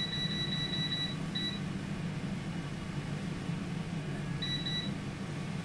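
Tower air fryer rotisserie oven's electronic beeper sounding as it is set to roast: a high beep held through about the first second, a short beep just after, and another half-second beep about four and a half seconds in. Under it, the oven's fan runs with a steady hum.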